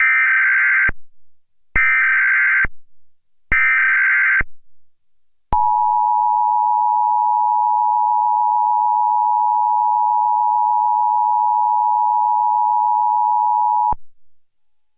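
Emergency Alert System test tones: three bursts of SAME digital header data, each about a second long, then the EAS attention signal, a steady two-note tone held for about eight seconds that cuts off a second before the end.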